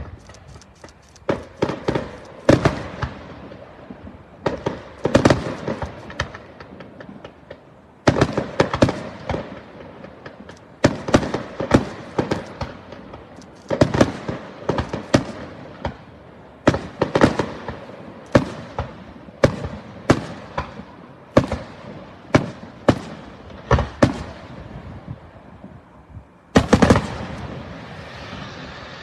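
Aerial fireworks display: an irregular series of sharp bangs from bursting shells, some in quick clusters, each trailing off in echo, with a dense volley near the end.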